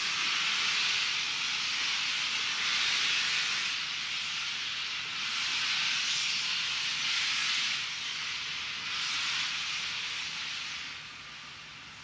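Steam locomotive moving off slowly with its cylinder drain cocks open: loud steam hiss in three long surges, each a few seconds long, dropping away near the end.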